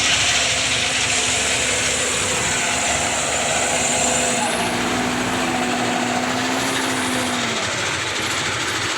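Bull backhoe loader's diesel engine running steadily as the machine works, with a steady hum that stops about three quarters of the way through.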